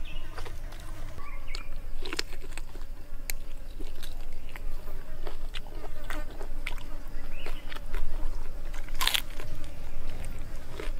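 A person chewing and biting grilled pig head meat and skin up close, with irregular wet smacks and crunches and one louder crunch about nine seconds in.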